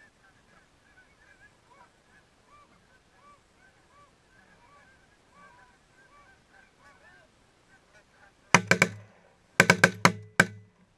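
Canada geese honking over and over, then a volley of shotgun fire: three quick shots about eight and a half seconds in, then five more within the next second.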